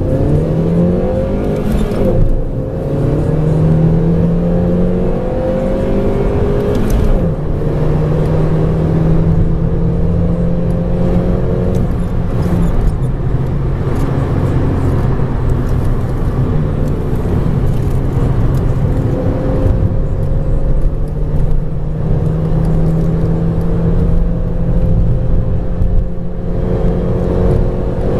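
Ford Focus MK2 1.6-litre four-cylinder petrol engine heard from inside the cabin under hard acceleration. Its pitch climbs in each gear and drops at gear changes about two and seven seconds in, then rises slowly for the rest of the run.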